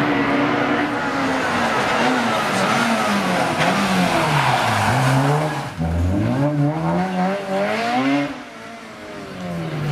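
Rally-prepared Honda Civic hatchback slowing into a hairpin, its engine note falling steadily as it brakes and changes down. A brief low thud comes about six seconds in, then the engine revs hard away, rising through two gear changes before it fades off up the lane.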